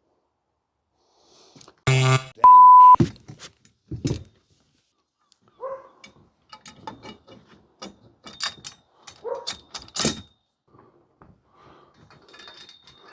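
A brief shout cut off by a loud one-tone censor bleep about two seconds in, followed by scattered knocks and rattles of the greenhouse frame's tubes being handled.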